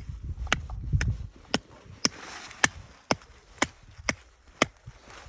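A spruce trunk being cut down by hand: sharp, regular knocks about twice a second.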